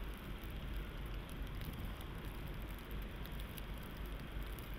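Outdoor snowstorm ambience: a steady noisy hiss over a low rumble, with faint scattered light ticks.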